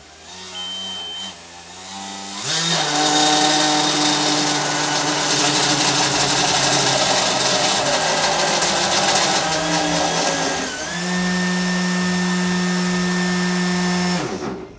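3D-printed PLA 120mm fan spun by a brushless race-quad motor, run up to full throttle: a loud motor whine over a rush of air, jumping up sharply about two and a half seconds in. Near the end the pitch dips and settles into a steady drone, then cuts off suddenly just before the end.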